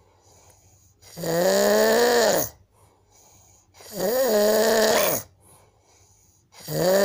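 A man snoring in his sleep with loud, pitched, bleat-like snores: three long snores about two and a half seconds apart, each dropping in pitch as it ends, with quiet between. The snorer takes it for a sign of a breathing problem.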